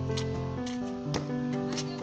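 Background music: held chords over a steady beat of about two strokes a second.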